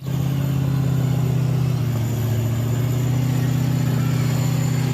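A steady, engine-like motor hum at one constant pitch, starting abruptly.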